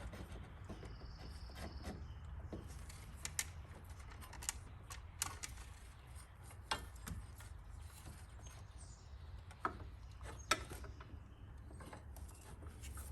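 Scattered metallic clicks and taps of parts and hand tools being handled while intake piping is fitted back onto a BMW E92 engine, the sharpest tap about ten and a half seconds in, over a steady low hum.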